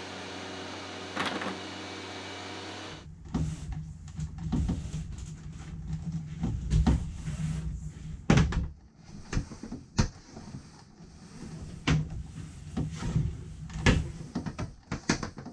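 Cables and fittings being handled as old wiring is pulled out and new wires are run. Irregular knocks and clicks from cable and panel handling sound over a steady low hum.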